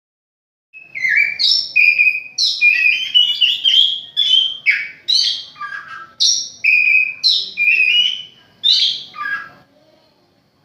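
Javan magpie-robin (kacer jowo) singing: a quick, varied run of clear whistled notes and short phrases that starts just under a second in and stops a second before the end.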